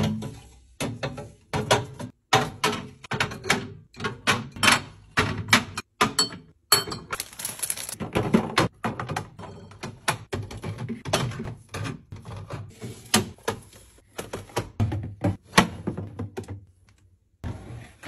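Repeated knocks and clacks of drink bottles, cans and yogurt cups being set down and pushed into clear plastic organizer bins on refrigerator glass shelves, with a longer scraping, rustling stretch about seven seconds in.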